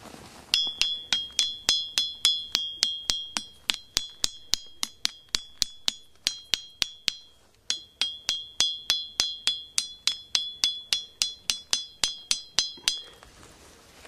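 Limestone block struck again and again, about three strikes a second, each giving a high, clear, bell-like ring, with a short break about halfway through.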